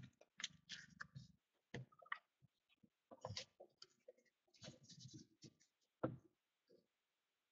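Near silence broken by faint, scattered rustles and light clicks from hands handling cards and their plastic holders.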